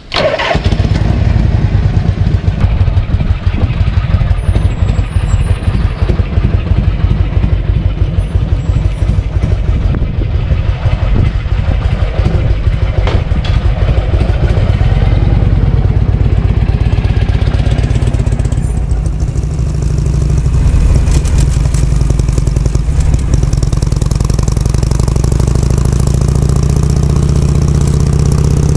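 Harley-Davidson Shovelhead FLH's V-twin engine running loud with a dense pulsing beat, cutting in abruptly at the start and settling to a steadier note about two-thirds of the way through.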